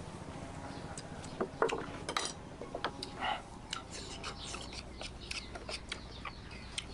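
Small knife shaving the skin off a green mango: a run of short, irregular scraping cuts as the blade strips the peel.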